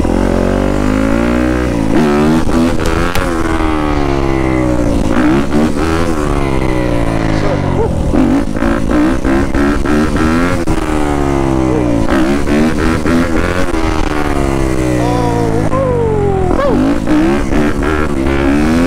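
Yamaha YZ250F dirt bike's four-stroke single-cylinder engine under hard riding. It revs up and drops back again and again as the rider works the throttle and shifts gears.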